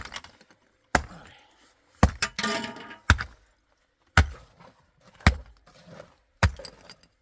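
Hand tool striking masonry in steady, evenly spaced blows, about one a second, seven in all, each a sharp crack with a short ring: chipping into a hard, firmly set concrete floor or wall.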